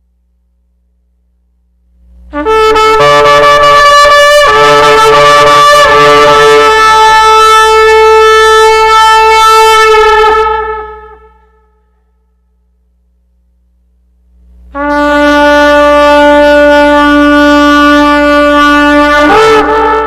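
A horn blown in two long held blasts, the first about eight seconds and the second about six, with a pause between them. The second wavers and breaks off at its end.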